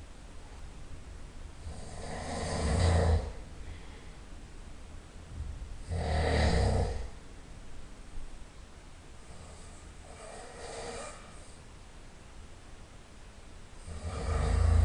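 A person snoring loudly in sleep: four snores about four seconds apart, each lasting about a second, the third one softer than the rest.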